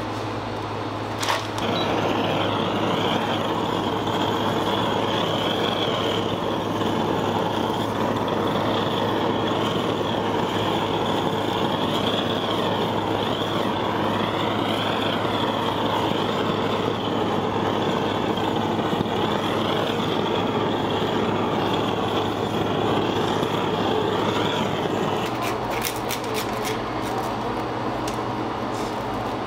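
A machine starts with a click just over a second in and runs with a steady rushing noise for about twenty-four seconds over a constant low hum, then stops, followed by a few clicks.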